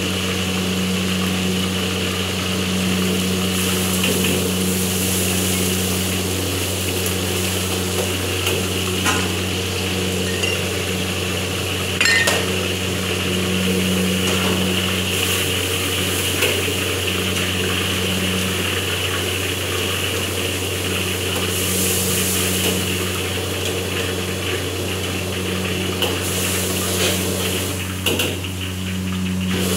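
Stir-frying at a gas wok burner: a steady low hum and hiss from the burner and kitchen, with a metal ladle clinking and scraping in a steel wok several times.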